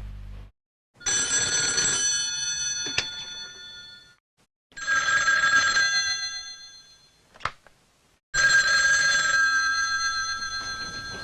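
A bell rings three times, each strike a bright metallic tone with several overtones that fades away over two to three seconds. There is a short click between the second and third rings.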